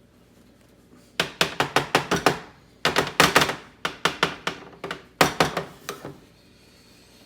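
Baking pan being tapped and knocked repeatedly, a quick run of sharp knocks in four or five clusters. This is done to loosen the baked potato dauphinoise so it releases from the pan.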